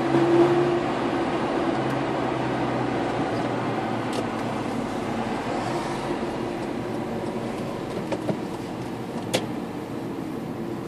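Cars moving in city traffic, heard from inside a following car: a steady drone of engine and road noise, with a brief louder tone just after the start and two sharp clicks, about four and nine seconds in.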